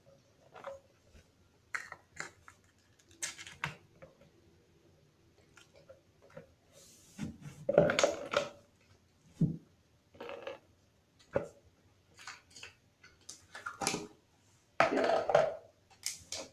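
Slime being worked by hand in a container: irregular sticky squelches and clicks, loudest about halfway through and again near the end.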